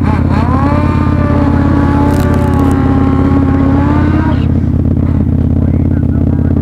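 A motorcycle engine idling steadily close by, under a second drag motorcycle ahead held at high revs for about four seconds. Its pitch climbs, holds and eases slightly before cutting off, the sound of a burnout before a run.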